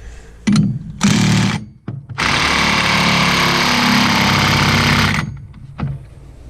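Impact wrench hammering the axle nut onto a side-by-side's wheel hub: a brief burst, a half-second burst about a second in, then a steady run of about three seconds that stops sharply.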